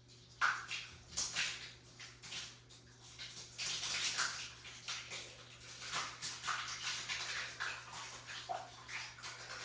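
Thick blended slime of condiments and canned soups poured over a person, slopping and splattering into a tub in uneven wet splashes, starting about half a second in.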